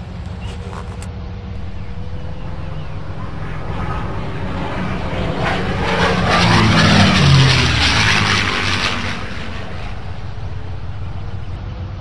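A propeller aeroplane flying past: the sound builds, peaks about seven seconds in with a falling pitch, then fades, over a steady low rumble.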